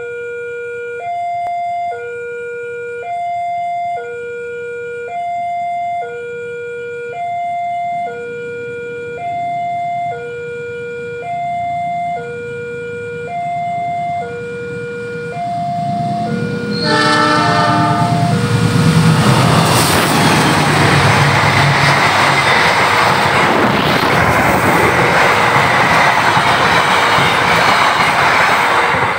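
Level-crossing alarm sounding, alternating between a low and a high tone about once a second. About 17 seconds in a train horn sounds for about a second, and the CC 206 diesel-electric locomotive and its passenger cars then rush past loudly, a dense rumble and rattle of wheels drowning the alarm, which carries on faintly.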